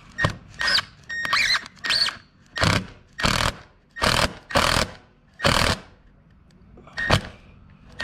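Cordless drill driving a screw into painted wood in short squeezes of the trigger: about a dozen brief whirs with short gaps between them, the first few carrying a thin motor whine.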